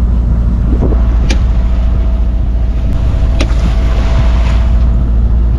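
A sailboat's engine running steadily, motoring through a calm with no wind, a low drone. Two short sharp clicks come through, about a second in and again about three and a half seconds in.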